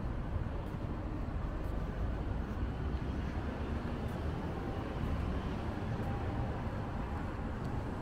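Steady outdoor street ambience, mostly a low traffic rumble, with a slight swell about halfway through.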